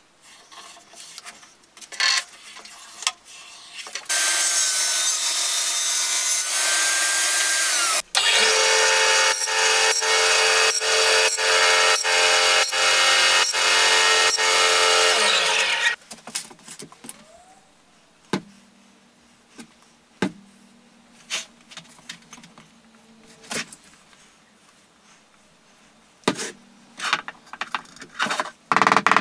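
Bandsaw running and cutting thin oak spline stock for about eight seconds, with a regular tick about every three-quarters of a second, after an earlier four-second burst of loud power-tool cutting. Afterwards only light clicks and taps of small wooden pieces being handled.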